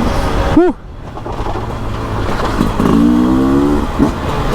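Beta RR 300 single-cylinder two-stroke enduro engine under throttle: a quick rev blip about half a second in, then the throttle closes and the engine drops off before picking up again with rising revs, easing off near the end.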